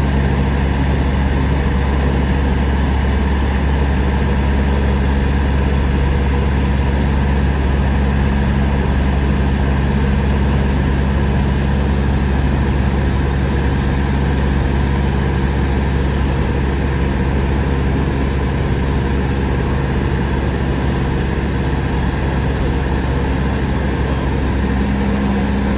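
Cabin noise of a Cessna in cruise flight: the single piston engine and propeller droning loudly and evenly, a deep hum with a few steady tones above it and a wash of airflow noise, heard from inside the cabin.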